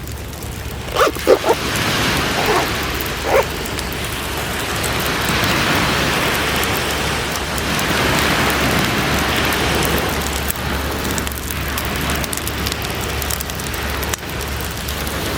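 Steady hiss and crackle of cooking over a campfire, with a few short sharp sounds between about one and three and a half seconds in.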